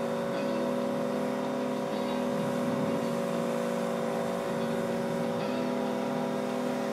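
Pressure washer running with a steady motor-and-pump hum while its jet sprays water onto a car wheel and tyre.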